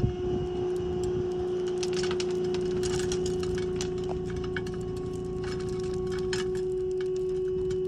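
Dump trailer's electric hydraulic pump whining at one steady pitch as it tilts the bed up, with scattered light ticks and patters of dirt clods and stones tumbling out of the raised bed.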